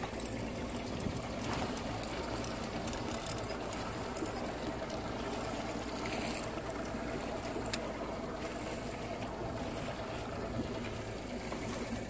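Fishing boat under way: its motor running steadily, with water rushing past the hull.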